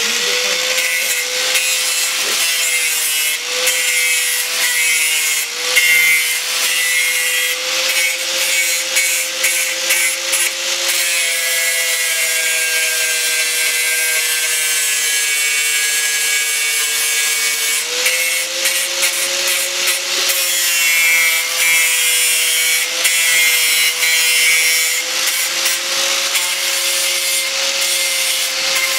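Electric angle grinder running with a steady whine, its disc grinding the edge of a small anvil with a harsh hiss to break a light radius on it.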